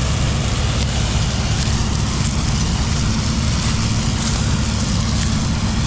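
New Holland CX5090 combine harvester running steadily, a loud, even machine drone with a strong low rumble.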